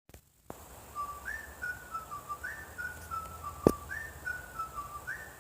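Whistled melody opening a pop song: a short phrase that leaps up and steps back down, repeated about four times, with a sharp click partway through.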